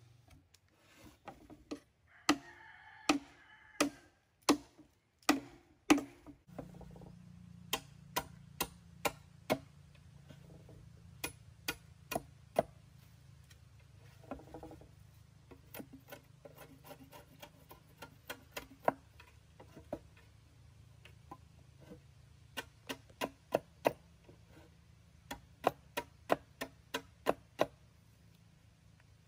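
Machete blade striking a green bamboo tube: sharp wooden knocks, a few louder ones in the first seconds, then quick runs of several light chops and taps as the blade cuts into the bamboo.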